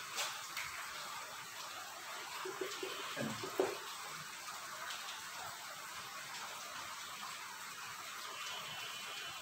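Quiet room tone with a steady hiss, and a few faint short sounds about three seconds in.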